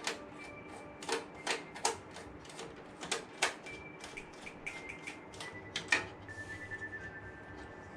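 Irregular clicks and taps of hard parts being handled, as when working on a desktop computer, with faint high single notes of background music.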